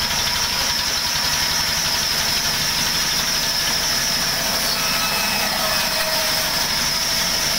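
Large band saw mill running steadily while a wooden plank is fed through the blade: a constant machine drone with a steady high-pitched whine on top.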